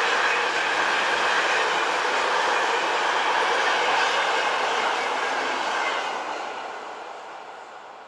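Freight train of intermodal container wagons and car-carrier wagons rolling past, a steady loud noise of wheels on rails; after the last wagon goes by about six seconds in, the noise fades away.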